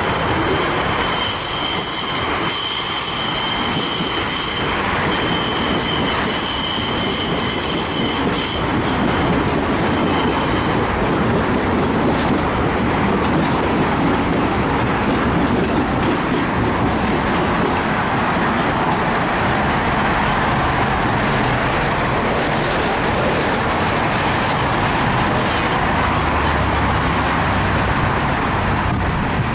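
Rail vehicle running past, its wheels squealing with several high, steady tones for the first eight seconds or so, then a steady rolling noise.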